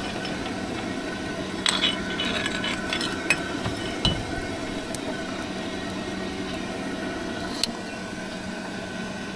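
Small electric blower motor on a miniature steam locomotive's chimney, running with a steady hum to draw the fire while steam is raised. A few light metallic clinks and ticks come at scattered moments over it.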